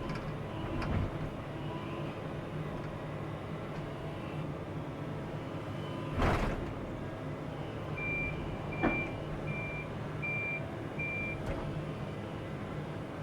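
Excavator's diesel engine running steadily, with a loud clunk about six seconds in. About two seconds later a warning alarm gives five evenly spaced beeps, with a short knock among them.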